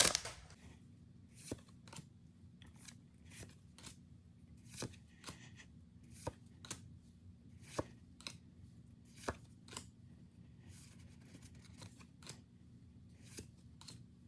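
Trading cards being flipped through by hand one at a time, faint irregular clicks and slides of card stock against the stack, about one a second.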